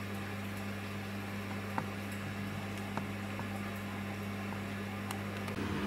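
Samsung WW10N645RBW front-loading washing machine running with a steady low hum and a couple of faint clicks. Near the end a louder, deeper sound comes in as the drum starts its next spin.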